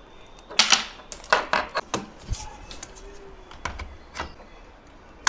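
Sharp metal clinks and knocks at irregular intervals as telescope tripod legs, screws and nuts are handled and fitted together, starting about half a second in, with one more knock right at the end.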